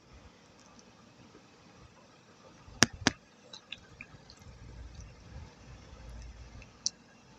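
Wet clay paste being worked, with soft wet dripping and squishing, scattered small ticks, and two sharp clicks close together about three seconds in.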